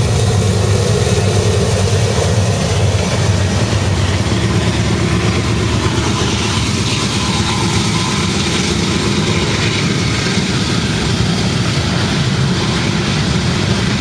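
Norfolk Southern freight train passing close at speed: the diesel locomotives' engines running loud and steady, with the wheels of the train rolling on the rails.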